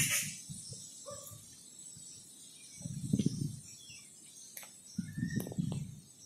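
Gusts of wind buffeting the microphone in irregular low rumbles, swelling about three seconds in and again near the end, with a few faint bird chirps.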